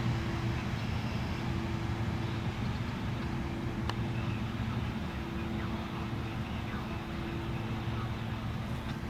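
Norfolk Southern freight train of covered hoppers and boxcars rolling past: a steady rumble with a low, even hum running under it. A single sharp click comes about four seconds in.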